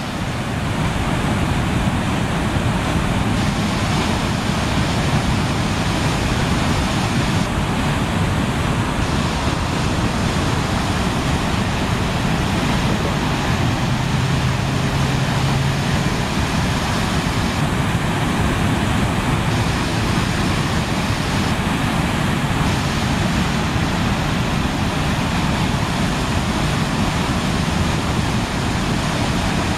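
Storm drain outfall gushing floodwater into a swollen river: a loud, steady rush of water.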